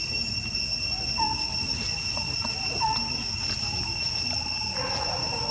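Steady high-pitched drone of forest insects, with two short rising squeaks about a second and about three seconds in.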